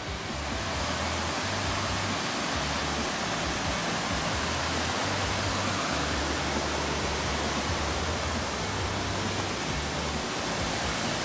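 Steady rush of fast-flowing mountain stream water, building up in the first second and then holding level, with an uneven low rumble underneath.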